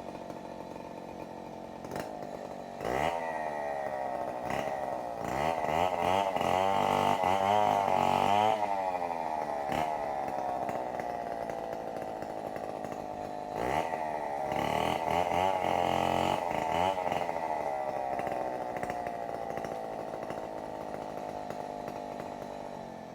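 Two-stroke chainsaw idling, then revved up about three seconds in and held at high speed with its pitch wavering as if under load while cutting firewood, easing back down, revved and loaded again around the middle, and settling back to idle near the end.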